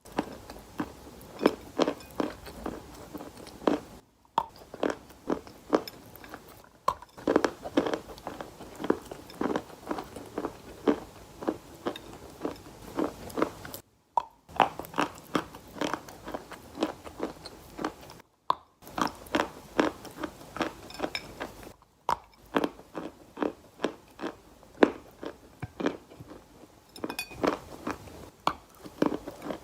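Wet, sandy grainy material crunching as it is pressed and crumbled, in a quick string of gritty crunches broken by a few brief silences.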